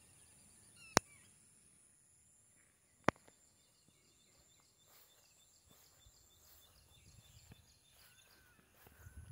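Quiet outdoor ambience: faint, repeated bird chirps over a steady high-pitched tone, broken by two sharp clicks about one and three seconds in.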